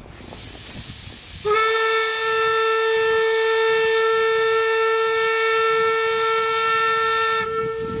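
Steam hissing from the Amemiya No. 21 narrow-gauge steam locomotive, then about a second and a half in its steam whistle sounds one long, steady blast, which turns thinner near the end.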